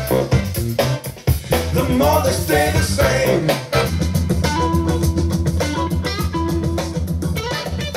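A song with a singing voice over guitar, bass and drums; the voice drops out about three and a half seconds in and the band carries on.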